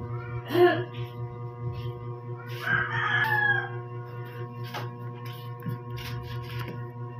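A bird calls twice over a steady droning hum: a short call about half a second in and a longer call about two and a half seconds in, its pitch dropping at the end. A few light clicks follow later.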